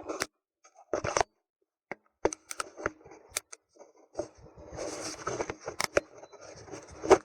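Handling noise as a camera is set in place: scattered clicks and light knocks, with a stretch of rustling about five seconds in and a sharper click near the end.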